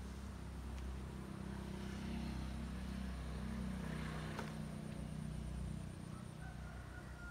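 Low engine hum of a passing vehicle that swells and then fades, its pitch dropping slightly in the middle.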